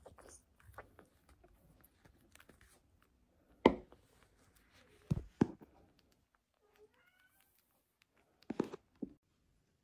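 Soft clicks of a kitten sucking at a feeding bottle at first, then a few louder knocks from handling. Near the end comes one short, faint kitten mew.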